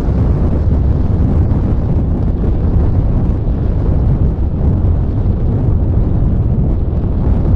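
Wind rushing over the microphone of a camera carried on a flying RC sailplane: a steady, loud, low buffeting rumble with no motor tone in it.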